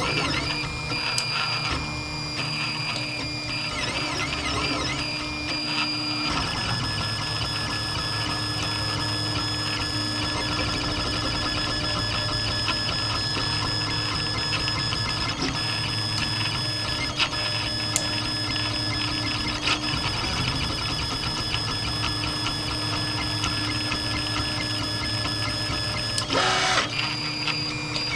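3D printer's stepper motors whining as the print head moves, steady tones that waver and shift in pitch as the moves change speed. A brief rattling burst near the end.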